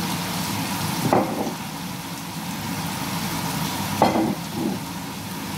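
Fish fillets frying in oil in a pan, sizzling steadily, with brief light knocks about a second in and again around four seconds in.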